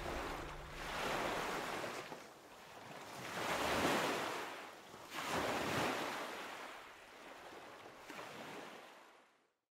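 Waves washing onto a shore in slow swells, about four of them, before fading out to silence near the end.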